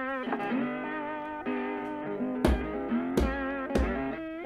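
Blues-style guitar music with wavering, slide-like notes, over which a rubber mallet knocks a steel rail down into loose sand-and-gravel subfloor three times in the second half.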